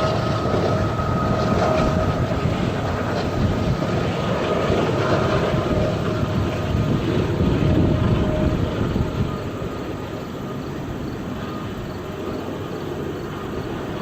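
Train rolling past, its last cars going by, with a faint steady whine over the rumble; the noise drops off about nine seconds in as the end of the train passes.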